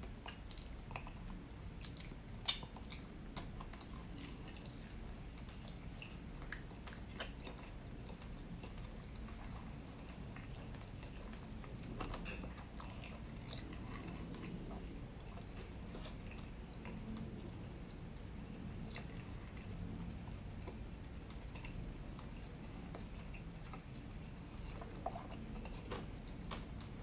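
Close-miked mouth sounds of a person chewing the last bites of honey rotisserie chicken, with sharp smacking clicks in the first several seconds that then thin out to quieter chewing.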